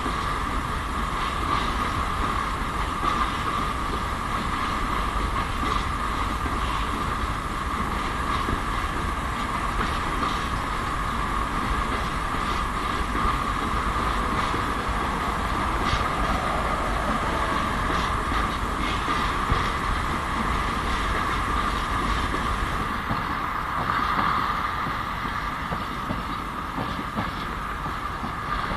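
ST44 (M62-class) diesel locomotive's two-stroke V12 diesel engine running steadily just after start-up, with a steady high whine over the roar.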